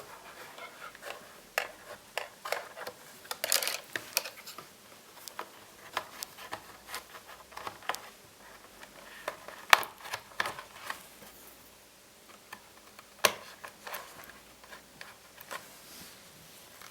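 Laptop parts being handled: irregular small clicks, taps and brief scrapes of plastic and metal, with a sharper click about ten seconds in and another about thirteen seconds in.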